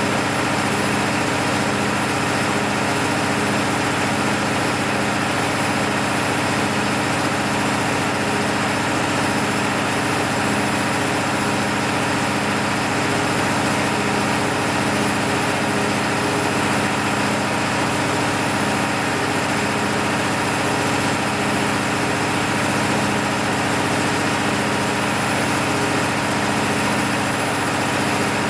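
MEP-006A 60 kW military generator set's six-cylinder diesel engine running steadily under a load test, freshly overhauled with new sleeves, pistons and bearings. The sound holds an even pitch and level, with a faint regular pulse in its hum.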